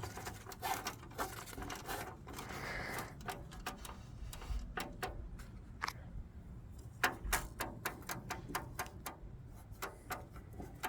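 Irregular light clicks and scrapes of an old 35 W low-pressure sodium (SOX) bulb being twisted and worked out of its bayonet socket in the street-lamp fixture.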